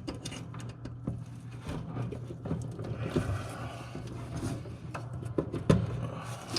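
Small irregular clicks and scrapes of wire terminals being handled and pushed onto a replacement electric heat sequencer's terminals, over a steady low hum.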